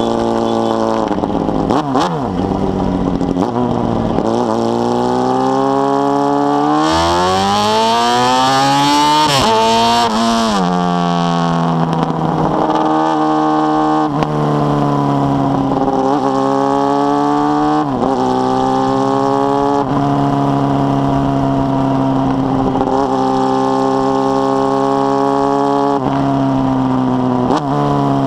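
Carbureted Honda Hornet inline-four motorcycle engine with a 4-into-1 exhaust, accelerating through the gears: the pitch rises, drops sharply at each shift, and settles at a steady cruise. About a third of the way in it pulls hard to high revs for a few seconds before a shift.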